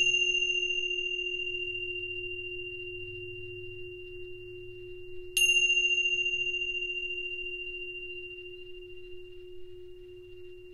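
Tingsha cymbals struck together twice, once right at the start and again about five seconds in. Each strike leaves a bright, high tone ringing and slowly fading, over a low steady tone.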